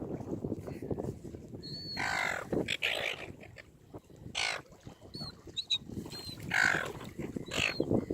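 Seagulls squawking: about five harsh calls spread through the span, with short high chirps between them, over steady low background noise.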